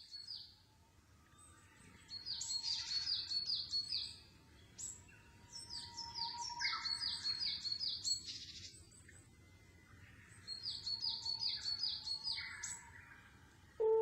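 A songbird singing: three bursts of quick, high, repeated chirping notes separated by short pauses.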